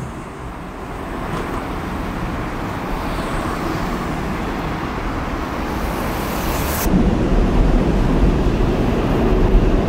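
Steady city traffic noise. About seven seconds in, a louder, deeper rumble takes over.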